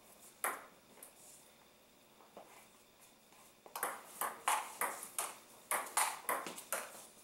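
Table tennis ball clicking off paddles and the table in a rally. There is one hit about half a second in, a lull, then a fast run of sharp clicks from about four seconds in, roughly three a second.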